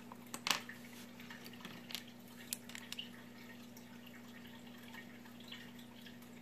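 A few light clicks and taps as a small reel pinion gear is handled and closed in the jaws of digital calipers, most of them in the first three seconds, over a low steady hum.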